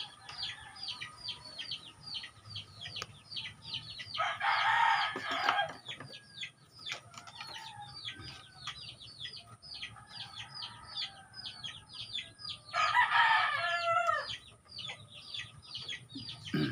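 Chicks peeping without pause in short, high, falling cheeps, several a second. A rooster crows twice over them, about four seconds in and again about thirteen seconds in, each crow lasting about a second and a half.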